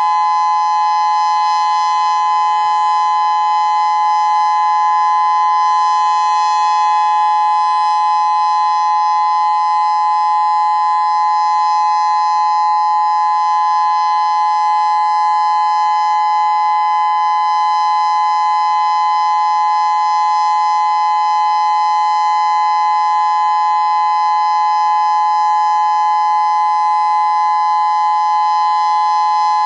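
Federal Signal Modulator 6024 electronic outdoor warning siren sounding a loud, steady tone at one unchanging pitch with higher overtones, held without rise or fall: a monthly siren test.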